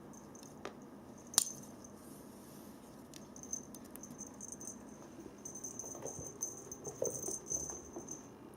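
A toy mouse with a rattle inside, jingling in quick, uneven shakes as a Bengal kitten bats it about, with a single sharp click about a second and a half in and small knocks near the end.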